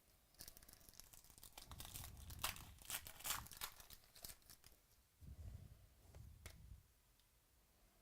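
Trading card pack wrapper being torn open and crinkled: a quiet run of ripping and crackling for about four seconds, followed by a few light clicks.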